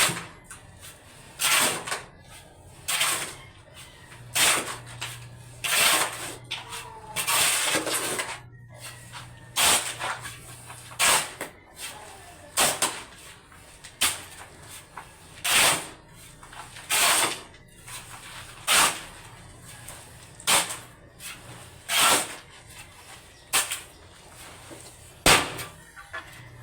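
Rhythmic scraping strokes of a hand tool working cement mortar, a short gritty scrape about every second and a half, with one longer scrape midway.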